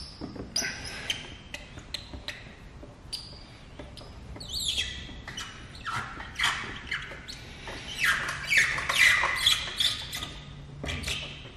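Plastic squeegee squeaking and scraping as it is worked across wet paint protection film on a steel bumper: a run of short chirping squeaks, busiest and loudest about eight to ten seconds in.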